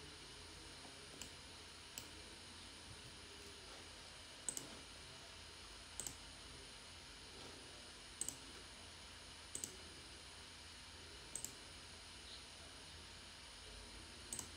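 Computer mouse buttons clicking, single clicks and quick double clicks every second or two, faint over a steady low hiss.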